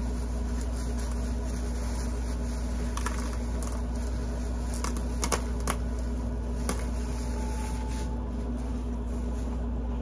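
Steady low hum, with a few light clicks about halfway through as rocks and crystals are handled and taken out of a bag.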